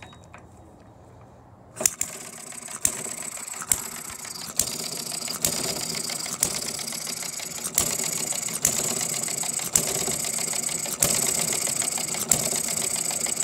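A small Topsy Turvy inverted hit-and-miss model gas engine catches about two seconds in and runs. It gives a sharp pop about once a second over a fast, steady mechanical clatter: it fires only when the governor lets it and coasts on its twin flywheels between firings.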